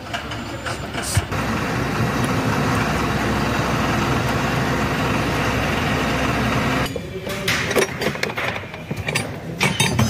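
A motor running steadily with a low hum for several seconds, then cutting off abruptly about seven seconds in; after it, sharp metallic clinks of tools and small engine parts being handled.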